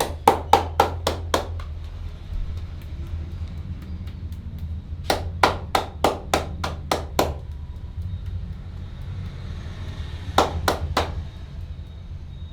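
Hand strikes of a percussive head massage: three runs of quick, evenly spaced slaps, about six, then eight, then three, at roughly three to four a second. A steady low hum runs underneath.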